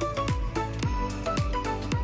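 Background music with a steady beat: a low drum hit that falls in pitch about twice a second under a melody of short notes.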